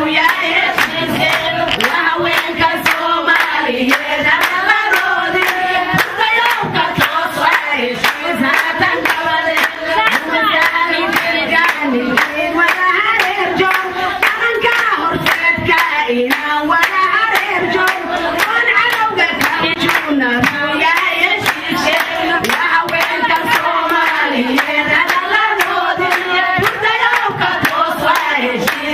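A group of Somali women singing buraanbur, a lead voice on a microphone with others joining in, over steady rhythmic handclapping.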